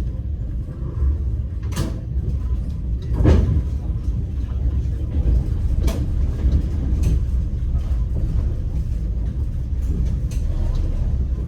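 Steady low rumble of a moving train heard from inside a passenger carriage, with a few irregular knocks and clacks of the wheels and carriage, the loudest about three seconds in.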